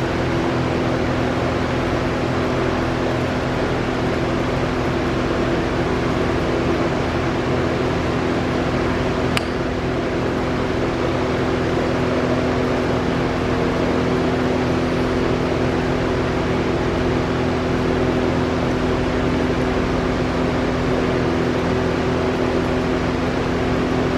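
Steady whirring drone of a running fan with a constant hum, and a single short click about nine seconds in.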